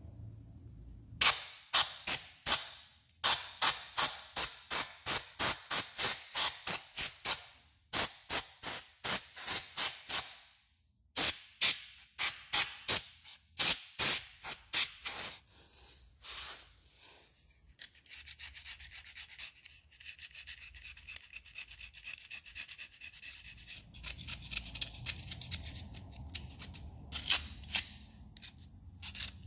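Metal hand tool scraping against the scooter engine's cylinder in quick repeated strokes, about two to three a second in bursts. From about 18 s on it gives way to a steadier, fainter rasping rub of metal parts being worked loose.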